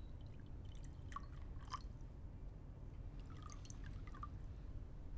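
Liquor being poured from a glass bottle into glasses: faint glugs and light taps in two short spells, the second a little past the middle.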